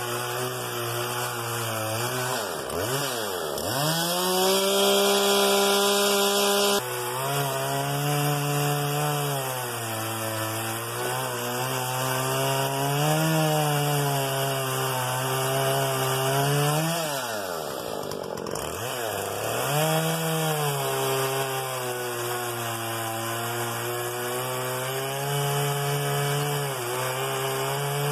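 Husqvarna 120 Mark II two-stroke chainsaw cutting through firewood logs, its engine pitch sagging and recovering under load, with a few drops to low revs and back up. The saw is running on old gasoline left in the tank, which the owner blames for its crazy low performance.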